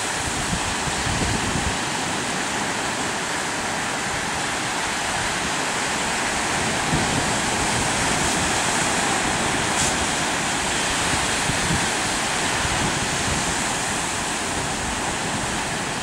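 Surf washing in over shoreline rocks, a steady rush of water, with gusty wind buffeting the microphone.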